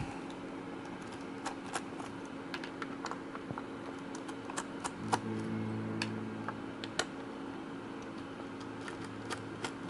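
Scattered light clicks and taps of a screwdriver working the hinge screws out of a laptop's screen assembly, with plastic and metal parts knocking. A low hum comes in for about a second and a half, about five seconds in.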